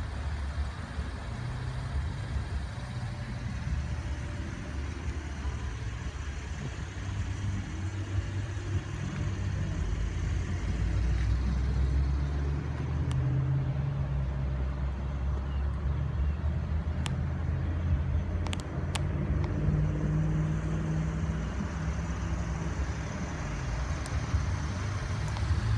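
A vehicle engine running steadily with a low rumble, and a few faint clicks in the second half.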